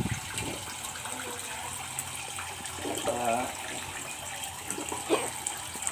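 Kitchen faucet running water into a cooking pot holding a whole chicken and cut vegetables, filling it for boiling. There is a sharp knock about five seconds in.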